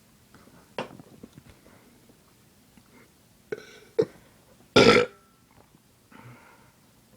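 A person burps once, loud and short, a little after the middle: a burp brought up by fizzy Sprite. A few short, quieter sounds come before it.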